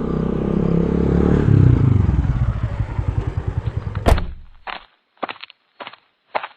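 A vehicle engine runs with a low pulsing beat that slows and fades, as if coming to a stop. A sharp knock comes about four seconds in, then short, evenly spaced knocks follow about twice a second.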